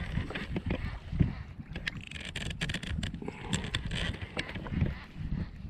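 Water sloshing and splashing at a kayak's side, with a string of small knocks and clicks from handling gear on the hull.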